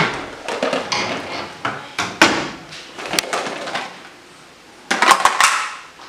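Kitchen handling clatter: a wooden cupboard door and a plastic food container knocking against wood and the tiled counter. It comes as a string of sharp knocks, with a quick cluster of several about five seconds in.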